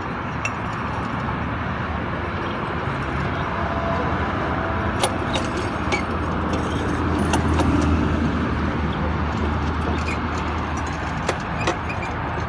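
Steady low engine drone that swells and fades around the middle, with scattered light clicks and ticks.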